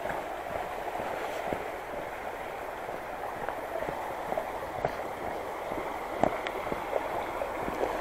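Footsteps on a village path, scattered irregular steps, over a steady rushing background noise.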